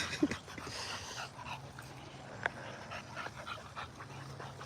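Dog panting over a steady low hum, with one sharp click about halfway through.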